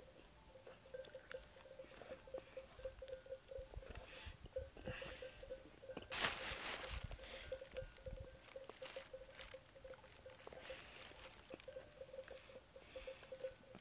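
A person eating close to the microphone: faint chewing with small mouth clicks and ticks. About six seconds in there is a brief, louder rush of noise.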